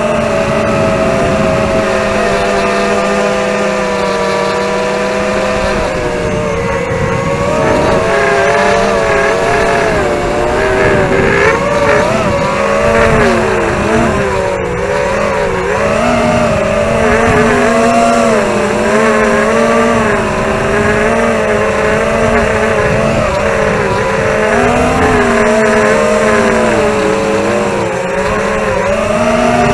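ZMR250 quadcopter's four DYS 2204 brushless motors spinning Dalprop 5040 tri-blade propellers in flight, recorded by the camera on board. A steady buzzing whine whose pitch rises and falls as the throttle changes.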